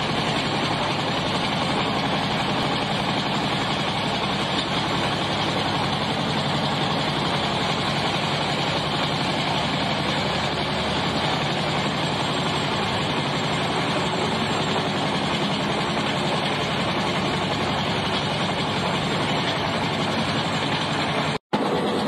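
Large excavator's diesel engine running steadily under hydraulic load while its jaw crusher bucket grinds concrete and rock, crushed stone pouring out below. The sound drops out for an instant near the end.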